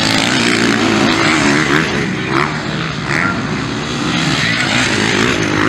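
Motocross dirt bike engines revving hard as the bikes race through the track, the pitch rising and falling with the throttle.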